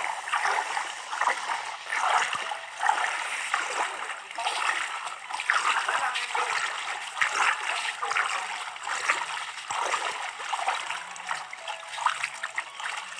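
Pool water splashing and sloshing around legs wading through a shallow swimming pool, in uneven surges about once a second.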